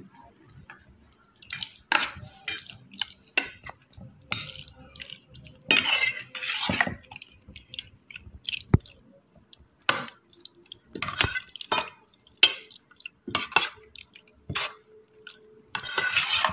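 A metal spoon stirring marinated chicken pieces and raw egg in a stainless steel bowl: irregular scrapes and clinks of spoon on steel, with wet sounds from the coated chicken, about one stroke a second.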